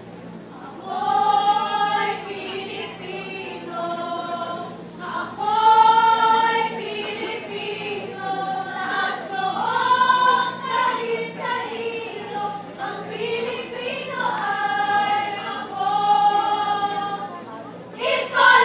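A large group of voices singing together in chorus, in phrases of long held notes, as part of a Filipino sabayang pagbigkas (choral recitation) performance.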